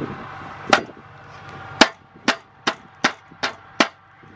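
Kitchen knife smacking a lemongrass stalk on a wooden cutting board to bruise it and release its scent: one sharp knock, then six more at about two and a half a second.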